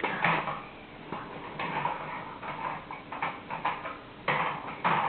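Plastic toy cars and trains being pushed along a toy track and knocked together, giving an irregular run of small clicks and clatters, with two louder knocks near the end.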